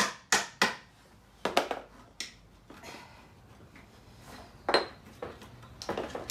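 A small hammer tapping on a dry-fitted maple chair leg to knock it loose from the seat joint: sharp knocks, three in the first second and a quick cluster around two seconds in. The taps are followed by quieter handling of the wood, with one louder knock about two-thirds of the way through.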